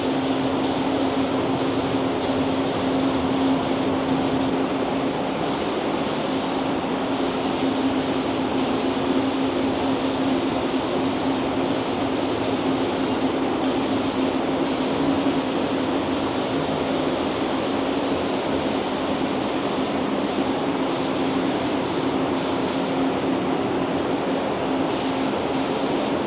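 Compressed-air spray gun hissing steadily as it lays epoxy primer onto bare metal parts, with a steady hum underneath.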